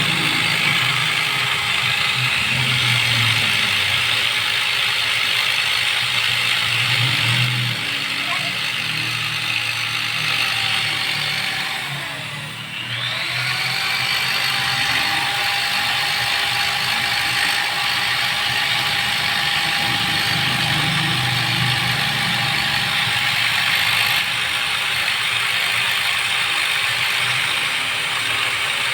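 High-speed die grinder running steadily while porting a Suzuki Satria two-stroke cylinder, with a continuous whine. About twelve seconds in, its pitch sags and it briefly quietens, then it comes back up to speed.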